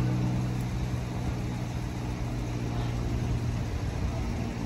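Steady low hum of an idling engine, even and unchanging.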